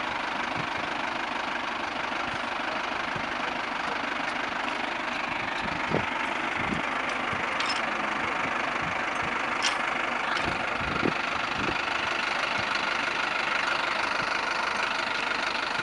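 Mahindra Arjun Novo 605 DI-i tractor's diesel engine running steadily, with a few short knocks about six and eleven seconds in.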